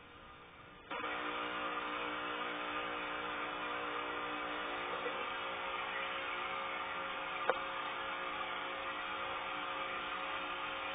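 Aquarium air pump and sponge filter running: a steady mechanical hum with bubbling hiss that starts abruptly about a second in. One sharp click sounds about seven and a half seconds in.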